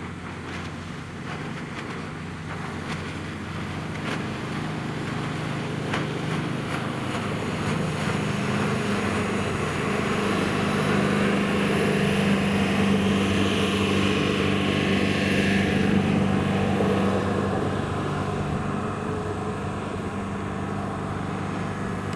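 Yanmar 4JH3-HTZAY 90 hp four-cylinder turbocharged marine diesel driving the boat under way. It is a steady engine drone that grows louder over the first two-thirds, then eases slightly.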